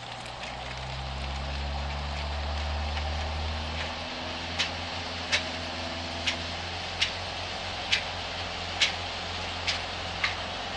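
A motor running with a steady low hum that swells over the first few seconds and then settles. From about four seconds in there are sharp clicks, roughly one a second.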